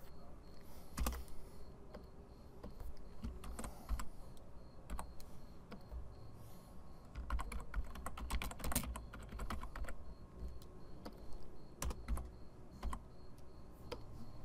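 Typing on a computer keyboard: scattered keystrokes, thickening into a quick run of keys about seven to ten seconds in.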